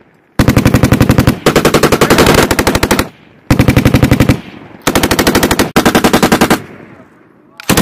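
M240B 7.62 mm machine guns firing a series of short bursts, about six in all, each roughly a second of rapid shots and each fading off in an echo before the next; the last burst begins near the end.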